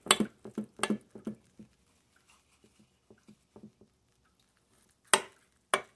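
Kitchen knife cutting through a baked meatloaf in a glass loaf dish: a run of light clicks and taps in the first second and a half, scattered faint ticks, then two sharp clicks about half a second apart near the end, the blade knocking against the glass.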